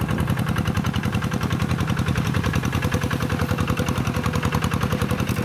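Single-cylinder diesel engine of a two-wheel hand tractor chugging steadily with a fast, even beat as it plows through wet rice-paddy mud under load.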